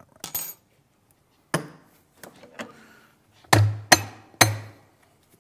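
Espresso portafilter being knocked out to empty the spent coffee puck. A metal clatter comes first, then a sharp knock about a second and a half in, then three hard, thudding knocks in quick succession near the end.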